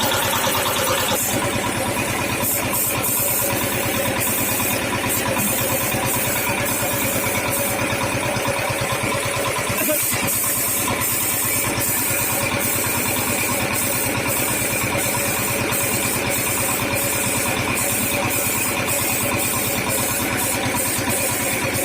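A motor runs steadily while a spray of paint hisses on and off in short repeated bursts, typical of spray-painting scooter body panels.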